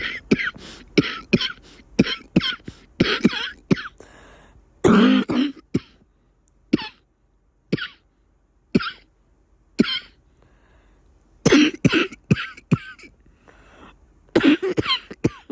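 A person coughing with a congested cough. A quick run of coughs comes first, then a longer cough, then single coughs about a second apart, and two more fits near the end.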